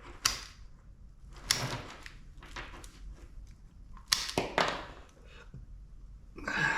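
Sharp metallic clacks and clicks of tools and scrap parts being worked while stripping a unit for scrap: four louder strikes, one right at the start, one about a second and a half in, and a close pair just past four seconds, with fainter knocks between.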